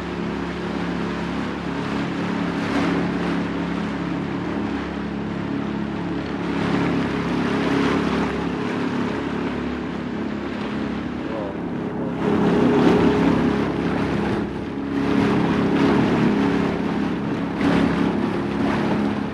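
Small tour boat's engine running steadily at cruising pace, with water and wind noise over it.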